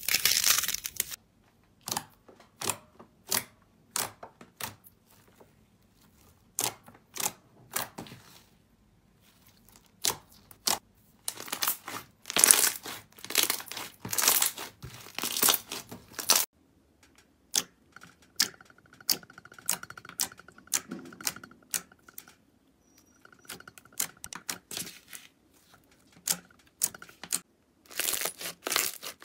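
Hands squeezing, stretching and pressing slime, from a thick clay-like slime to a fluffy slime, giving clusters of sharp crackles and pops with quiet gaps between them.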